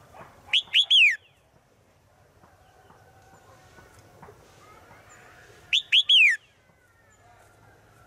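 Red-whiskered bulbul singing two short phrases about five seconds apart, each of three quick whistled notes, the third longer and falling in pitch. The song is presented as a female calling to a male.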